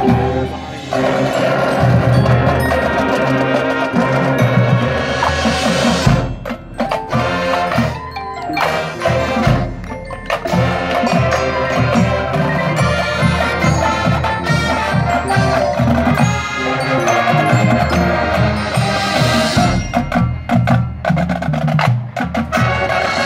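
Marching band playing a field show: brass (sousaphones, trumpets, saxophones) over a drumline, with front-ensemble mallet percussion adding ringing pitched notes and a steady rhythmic pulse.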